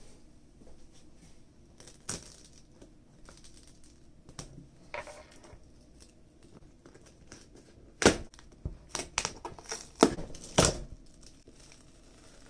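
Tape and mesh wrapping being peeled off the top of a plastic container. Faint scattered handling clicks give way about eight seconds in to a run of loud tearing and crinkling.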